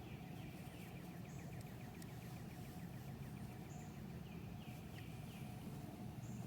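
Songbirds singing faintly over a steady low background noise. A fast trill of about ten notes a second runs for the first two seconds or so, with short curved chirps later on and a few thin high notes.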